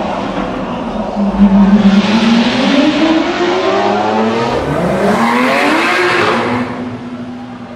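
Lamborghini Aventador's V12 accelerating hard through a concrete tunnel, its engine note climbing steadily in pitch and loudest as it pulls away. A second car's engine then revs up, rising in pitch about five seconds in.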